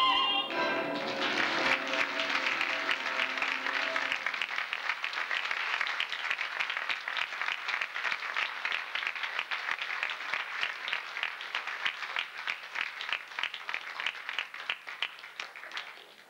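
Audience applauding at the end of a sung operetta number. The music's final held chord stops about four seconds in, and the clapping carries on alone, thinning out and fading near the end.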